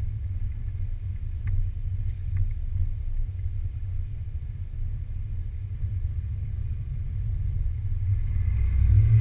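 Ford Capri's engine running at low revs, heard inside the cabin as a steady low rumble while the car rolls slowly, swelling louder just before the end.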